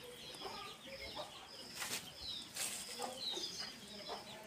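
Faint farmyard background: hens clucking in short calls, and a bird repeating a short high chirp about twice a second. A few light metallic clicks come near the middle as nuts are fitted by hand onto the chaff cutter's blade bolts.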